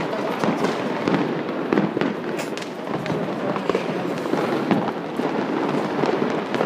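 Many fireworks going off at once: a dense, continuous crackle of overlapping pops and bangs.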